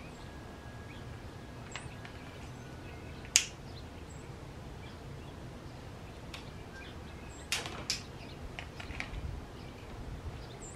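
A few sharp clicks and light knocks of hard objects being handled at a workbench. The loudest is a single sharp click about three and a half seconds in, with a small cluster of clicks near eight seconds and lighter ticks after it.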